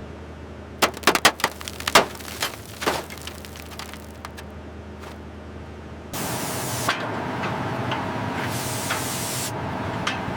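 A quick run of sharp knocks and clanks over a low steady hum, then an abrupt switch about six seconds in to a steady hissing rush, with a louder high hiss for about a second near the end.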